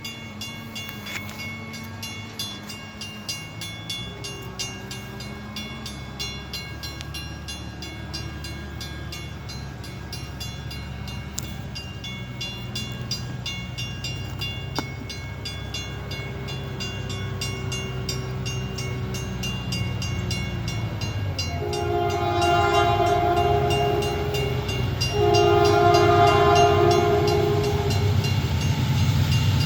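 New England Central freight train's diesel locomotive approaching, its engine rumble slowly growing louder. About three-quarters of the way in, its multi-tone horn sounds two long blasts, and a third begins near the end.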